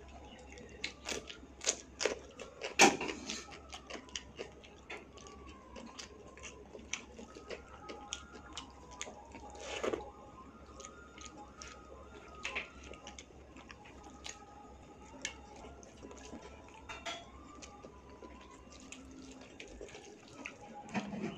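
Close-miked wet eating sounds: chewing and lip-smacking on chicken liver curry and rice, with soft squishing as a bare hand mixes rice into the gravy. Many sharp, irregular wet clicks, the loudest about three seconds in.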